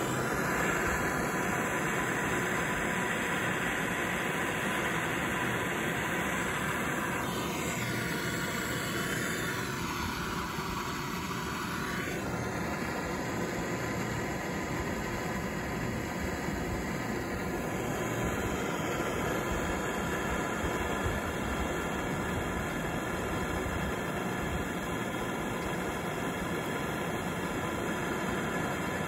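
Handheld gas torch burning with a steady hiss of flame, heating a seized rear wiper-arm collar so it expands and loosens.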